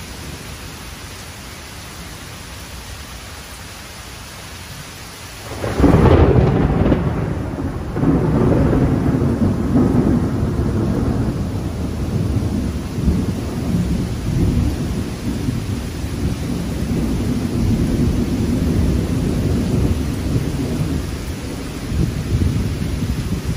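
Steady rain, then about six seconds in a sudden crash of thunder that turns into a long, deep rolling rumble, swelling again a couple of seconds later.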